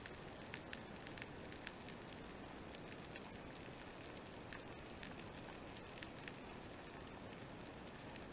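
Underwater ambience picked up by a camera beneath the sea surface: a faint, steady hiss with irregular sharp clicks, about one or two a second.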